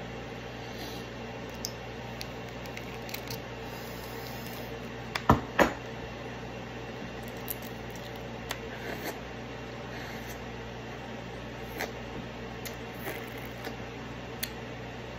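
Eating a balut (boiled fertilized duck egg): soft squishy eating sounds and light clicks of a small spoon against the eggshell, over a steady room hum. Two sharp knocks about five seconds in.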